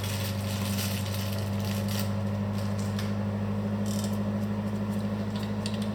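A steady low hum from a fan or other machine in the room, with a few light clicks and rattles of small motorcycle parts being handled.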